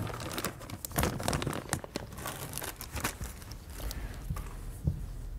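Handling noises of car parts on a towel-covered workbench: irregular rustling and crinkling of plastic parts packaging, with small clicks of metal chain links being put down.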